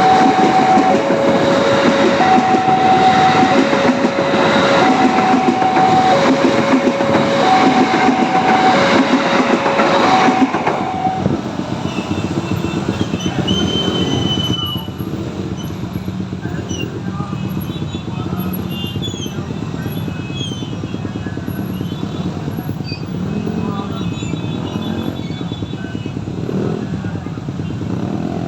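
An electric train passes with a loud rattle of wheels over rails. Under it a two-note warning alarm alternates steadily between a lower and a higher tone. About ten seconds in, the train noise and the alarm stop, leaving quieter street traffic noise with scattered short chirps and squeaks.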